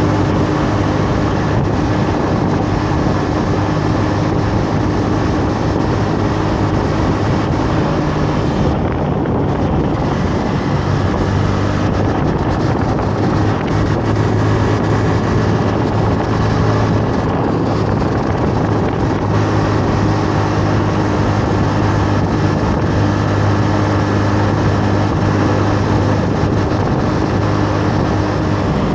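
Honda Navi 110's small air-cooled single-cylinder engine running steadily at cruising speed, with wind rushing over the microphone.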